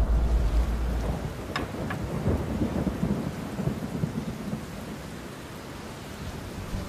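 Steady rain with a deep thunder rumble that dies away about a second in; the rain grows quieter toward the end.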